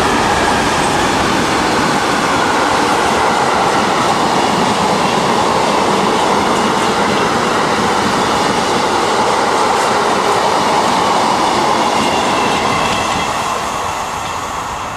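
Freight train wagons, covered hoppers and then flat wagons, rolling past close by: a steady loud rumble and rattle of wheels on rail with a faint high whine. It fades near the end as the last wagons go by.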